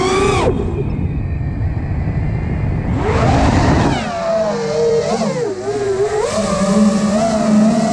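5-inch FPV quadcopter's four motors and propellers whining, the pitch swinging up and down with the throttle. The pitch drops sharply about half a second in, a short loud throttle punch comes about three seconds in, then the whine wavers and climbs again near the end.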